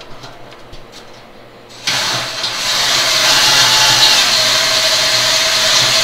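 Cordless drill spinning a 1 1/8-inch hole saw into a stainless steel keg, cutting a shallow recess around a fitting for solder to bead in. A few handling clicks, then about two seconds in the drill starts and cuts steadily with a held whine.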